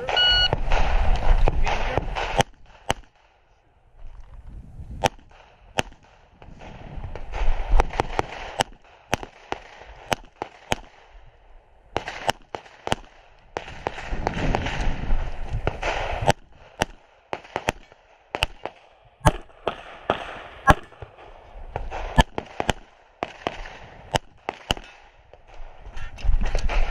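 Competition pistol shots fired through a USPSA stage: a shot timer's start beep, then many sharp shots, often in quick pairs, in strings spread across the run. Rustling noise from the shooter moving between firing positions fills the gaps.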